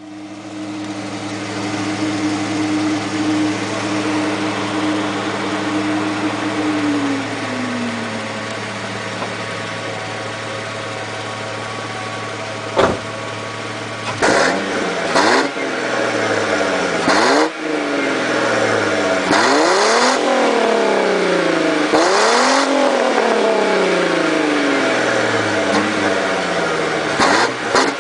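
Ford Mustang 3.8-litre V6 exhaust, the stock system, idling steadily and settling to a lower idle about seven seconds in. Then it is revved about five times, each rev rising and falling, with several quick throttle blips near the end.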